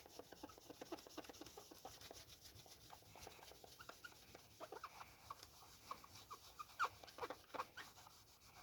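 Near silence, with faint, scattered short squeaks and ticks.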